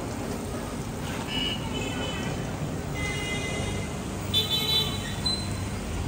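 Street ambience with a steady low rumble and background voices, cut by three short, high-pitched horn beeps about one, three and four seconds in, the last one the loudest.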